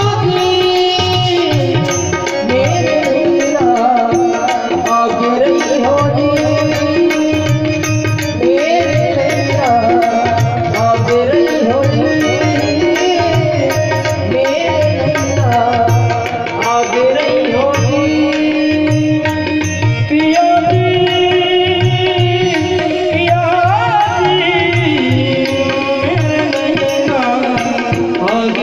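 Music: a melody with sliding notes over a steady, repeating low beat.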